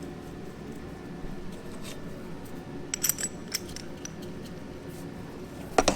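Light clicks and clinks of connecting-rod parts being handled, at about two seconds and a few around three seconds in, with a sharper knock near the end, over a steady low hum.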